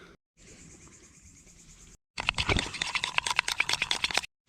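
Two short edited snippets. The first is faint, high, fast insect chirring. The second is a louder, dense run of sharp crackles and clicks.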